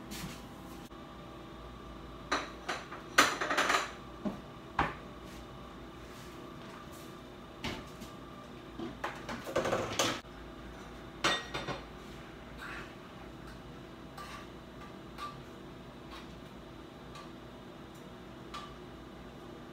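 Kitchenware clattering: dishes, pots, a pan and cutlery knocked and set down in short bursts, busiest a few seconds in and again around the middle, with fainter clinks later. A steady hum runs underneath.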